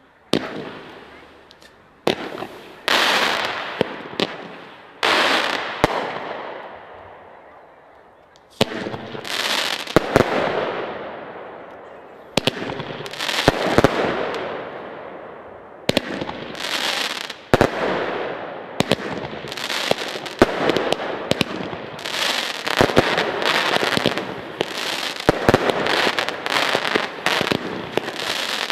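Fireworks finale: aerial shells bursting with sharp bangs, each followed by a fading crackling hiss. The bursts come a second or two apart at first, then faster and overlapping into a dense barrage over the second half.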